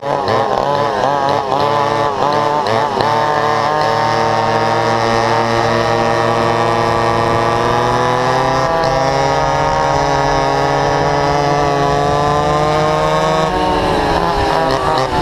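Vintage two-stroke go-kart engines at racing revs. The pitch rises and falls unevenly at first, then climbs slowly and steadily as the kart accelerates, and drops about two seconds before the end as the throttle comes off.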